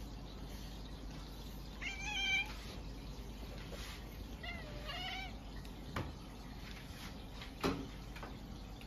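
A cat meowing twice, two wavering calls a couple of seconds apart, the second sliding upward in pitch. Two sharp clicks come later, near the end.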